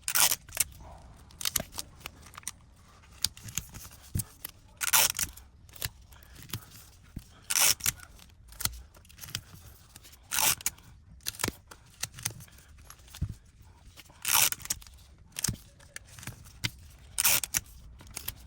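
Strips of adhesive tape pulled off a roll and torn, short rasping bursts every couple of seconds with small clicks and taps between, as tape is put on to hold a newly glued tablet screen while the adhesive sets.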